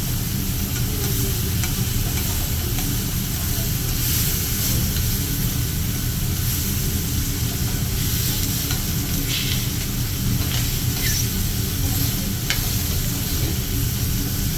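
Food sizzling on a hibachi griddle: a steady, even frying hiss over a steady low hum, with a few light clicks in the second half.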